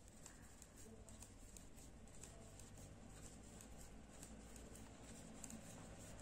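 Near silence with faint, irregular light ticks of metal knitting needles as stitches are knitted in wool.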